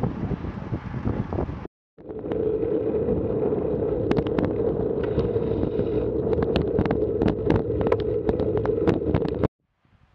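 Wind rushing over an action camera's microphone on a moving road bicycle, with tyre noise on wet tarmac and many sharp clicks and rattles. The noise drops out suddenly for a moment about two seconds in. It cuts off again near the end, leaving faint outdoor quiet.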